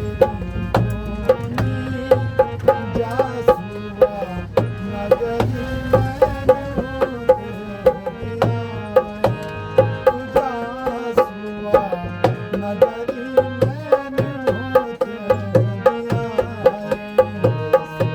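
Indian-style music: a hand drum keeps a steady, quick rhythm under a melody line that bends up and down in pitch.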